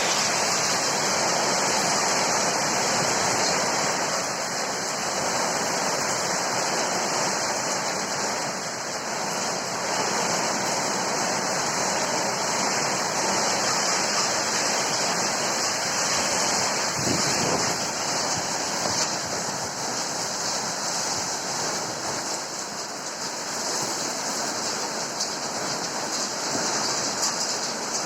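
Heavy rain pouring steadily in strong wind, a dense, even hiss.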